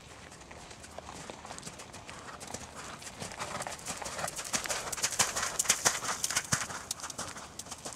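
Hoofbeats of a ridden horse trotting on arena footing. The strikes grow louder as the horse passes close by about halfway through, then fade as it moves away.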